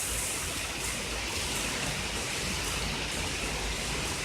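Very heavy rain pouring down steadily, with water sheeting off a roof that the gutters can't keep up with, and a low rumble of wind in the microphone.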